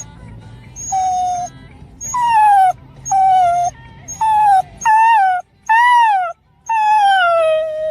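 A dog whining and howling in about seven separate high, drawn-out cries, most of them falling in pitch.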